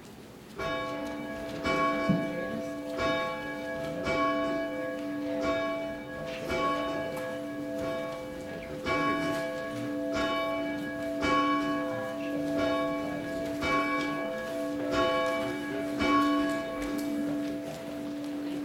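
A church bell tolling, struck about once every second and a bit, over a dozen strokes, each ringing on into the next. The strokes stop shortly before the end and the low hum keeps ringing.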